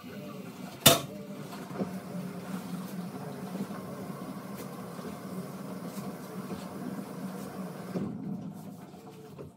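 Toilet being cleaned by hand: a sharp clack about a second in, then fainter knocks and handling sounds.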